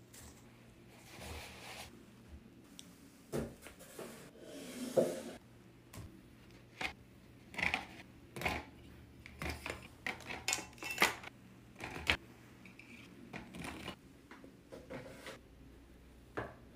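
Scattered light taps, clicks and rustles as bathroom items are handled and set into a woven wicker basket and onto a shelf: a toilet paper roll, a pack of toothbrushes, a planter box.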